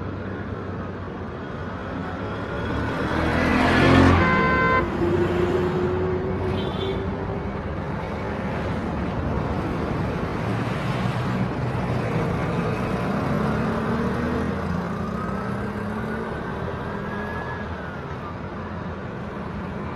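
Road traffic: motor vehicles passing with steady engine and tyre noise, and a car horn sounding briefly about four seconds in, the loudest moment.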